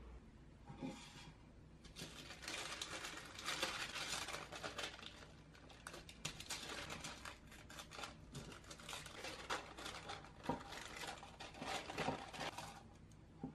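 A sheet of baking paper being folded and creased by hand, rustling and crinkling in bursts from about two seconds in until near the end.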